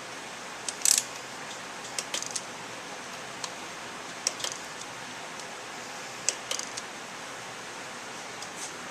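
Torque wrench and socket clicking on the cylinder head nuts of a Honda CRF50 with an 88cc big bore kit, as the nuts are brought to 9 foot-pounds. The clicks come singly and in quick pairs every second or two, over a steady low hiss.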